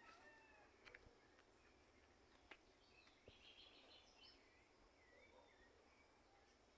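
Faint, scattered bird chirps and short whistled calls over quiet outdoor background noise, with a brief rapid trill a little past the middle and a few sharp clicks near the start.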